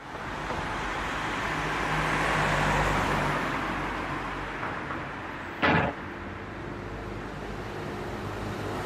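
Road traffic noise with a truck's engine running. A sudden loud noise lasting a fraction of a second comes a little before six seconds in.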